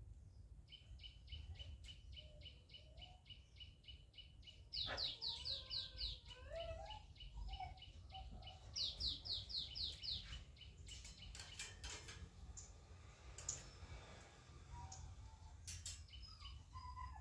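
A small bird calling: a fast run of short high chirps, about five a second, twice breaking into a louder burst of quick falling notes. Scattered light clicks follow in the second half.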